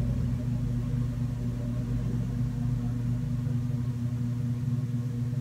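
Steady low hum of a running appliance, unchanging throughout.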